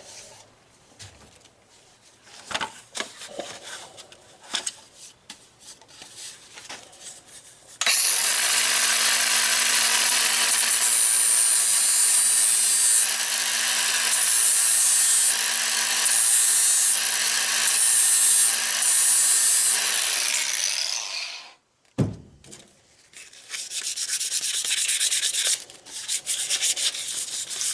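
Sandpaper rubbing on wood in faint scratches, with a loud steady hiss carrying a low hum that starts about 8 seconds in and cuts off about 13 seconds later, followed by more rubbing near the end.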